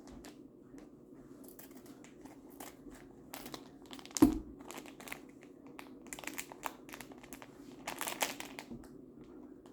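Packaging of a monkey noodle fidget toy crinkling and tearing as it is opened by hand, in many short crackles, with one sharp knock a little over four seconds in.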